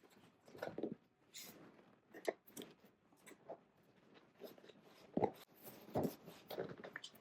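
Handling of a leather-covered seat cushion: scattered soft rubs and rustles with a few light knocks, the strongest two about five and six seconds in.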